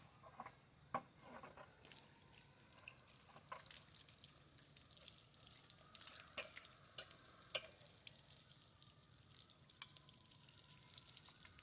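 Faint, scattered wet clicks and squelches of hands and a knife working on a freshly gutted rooster carcass.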